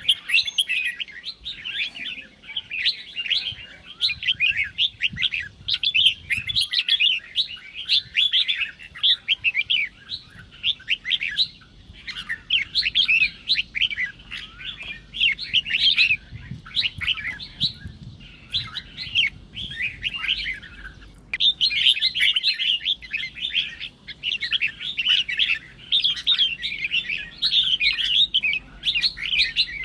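Red-whiskered bulbul singing a rapid, unbroken run of chattering, whistled notes: the fierce fighting song that keepers play to provoke other bulbuls into singing.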